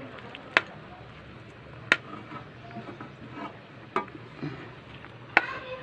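Spaghetti being stirred through a creamy sauce in a metal pan, with soft wet stirring noise and four sharp knocks of the utensil against the pan, spaced about a second and a half apart.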